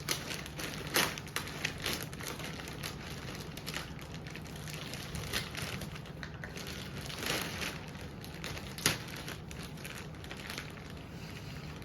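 Plastic packaging crinkling and rustling with scattered small clicks and taps as a boxed camera bag is handled, over a steady low hum.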